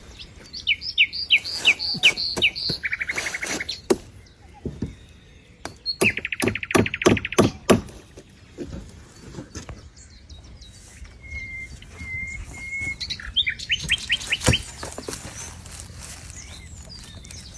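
Bird calling in several quick runs of short descending chirps, with a few brief whistled notes, and scattered sharp knocks and taps in between.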